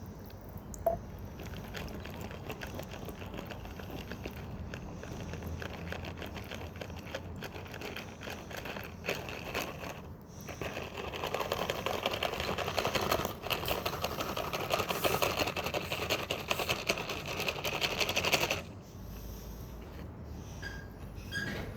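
Continuous crunching and scraping of loose stones and gravel, with many small clicks. It grows louder and denser about halfway through, then stops abruptly a few seconds before the end.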